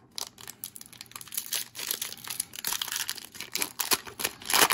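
A Pokémon booster pack's foil wrapper being torn open and crinkled in the hands: a run of crackles and rips, the loudest near the end.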